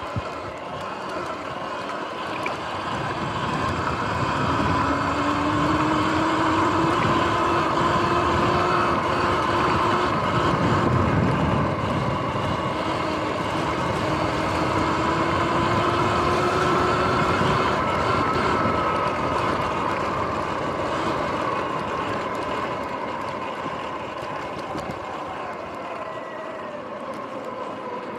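Sur-Ron X electric dirt bike's motor whining under a steady rush of riding noise; the whine climbs in pitch as the bike speeds up, holds, then falls away over the last several seconds as it slows.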